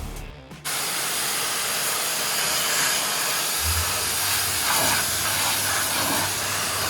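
Pressure washer jet spraying with a steady, loud hiss that cuts in about half a second in.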